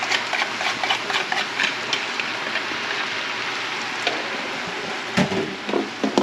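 Noodles, broccoli and beef sizzling steadily in a hot frying pan as sauce is added. A utensil clicks and scrapes against the plastic sauce container in the first second or so, and two dull thumps come near the end.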